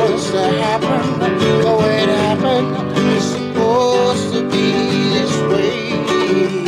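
Classical nylon-string guitar played with strummed chords, with a man singing a melody over it.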